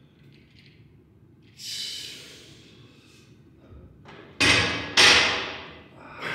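A forceful exhale of effort, then two heavy impacts about half a second apart, as weights are dropped onto the floor after a set.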